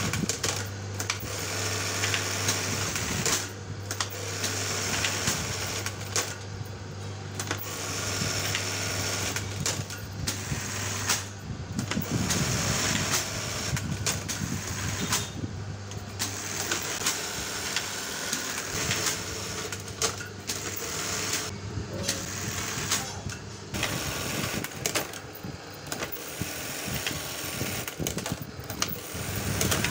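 Industrial buttonhole sewing machine stitching buttonholes in a shirt placket: rapid needle clatter over the steady hum of its motor, breaking off briefly several times.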